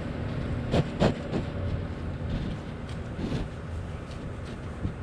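A Holstein heifer nosing right up against the camera makes two loud, sharp close-up noises about a second in and a weaker one a little after three seconds, over a steady low rumble.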